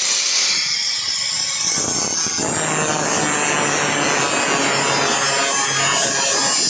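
Handheld angle grinder with a thin cutting disc running steadily and cutting into a plastic computer mouse. The sound gets coarser and fuller about two seconds in.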